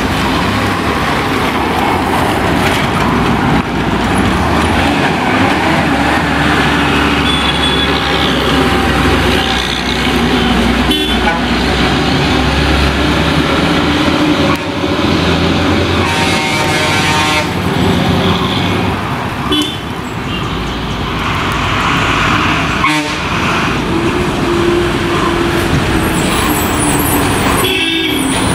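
Diesel engines of a truck and then a bus running as they take a hairpin bend, with a horn blown for about a second and a half near the middle.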